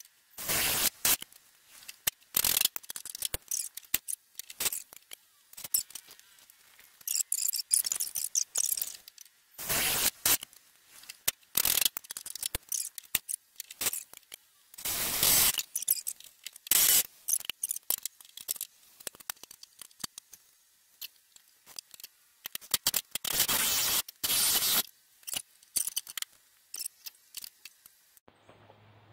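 Metal tool work on the van's rear frame: short, irregular bursts of scraping with many sharp clicks and taps between them.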